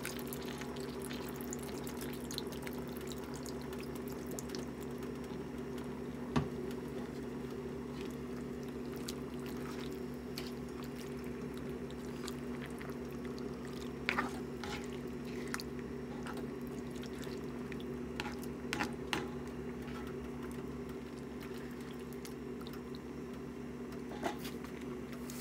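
Squid simmering in its sauce in a wok, with soy sauce poured in at the start, over a steady low hum. A few light clicks of a spatula against the wok come around the middle and near the end as the pan is stirred.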